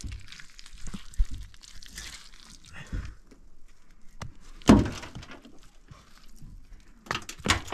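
A few separate knocks and thuds, the loudest about halfway through and another near the end.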